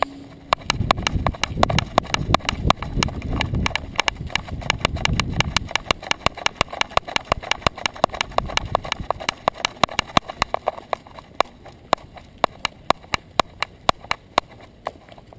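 Quick, even clicking of a small terrier's trotting steps, about six a second, picked up by a camera strapped to its back. A low rumble lies under the clicks for the first five seconds or so, then fades.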